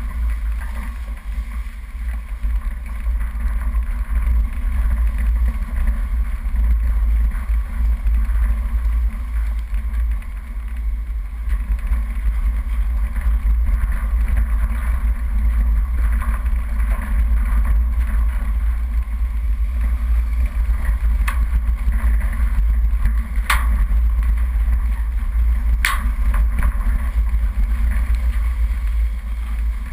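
Off-road 4x4 driving slowly down a rough dirt track: steady low engine and road rumble with wind buffeting on a bonnet-mounted camera. Three sharp knocks come in the second half, typical of bumps and stones under the vehicle.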